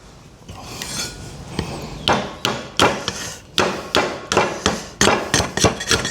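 A dozen or so sharp strikes on wood, coming about two to three a second from about two seconds in: a makeshift wooden handle being knocked and shaped to fit a slasher blade.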